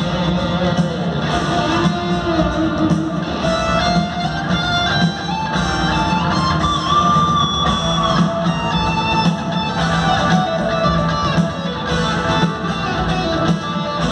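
Live rock band playing, led by guitar: a melodic lead line over steady backing chords. It is heard through a large arena's sound system.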